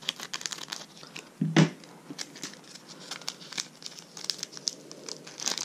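Foil Magic: The Gathering booster pack wrapper crinkling and crackling as it is cut open with scissors and pulled apart by hand, with many small crackles and one louder knock about a second and a half in.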